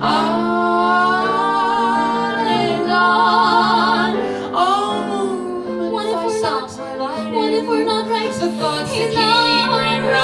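A woman singing long held notes with vibrato in a musical-theatre song, over steady instrumental accompaniment.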